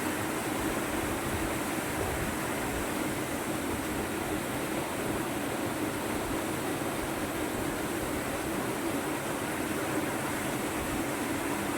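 Steady rush of fast-flowing river water at a waterfall, an even unbroken noise.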